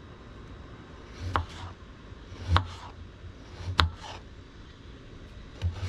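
Four dull knocks with a low thud, a second or two apart, from working on the Farmall H tractor's starter, which will not turn the engine over and which the owner takes to be dead.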